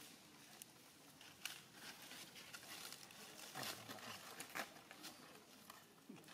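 Faint rustling and crackling of dry leaf litter, with a few sharper crackles, as macaques move over the leaves.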